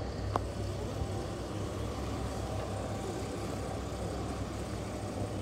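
A large vehicle engine running steadily, a low even rumble, with one short click shortly after the start.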